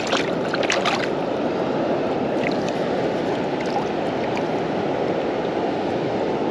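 Steady rushing of water from a big weir pool on a river running high after rain, with a few brief sharp sounds in the first second.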